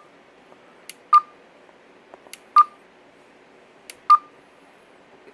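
Stryker SR-655HP CB radio's key beep: three presses, each a sharp button click followed by a short single-pitched beep, about one every second and a half, as the display colour is stepped through.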